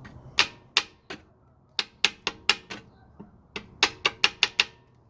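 Sharp metal-on-metal taps, about fourteen in irregular clusters with a brief ring after each, struck against the Dana 35 rear differential cover to break it loose where silicone sealant holds it stuck on.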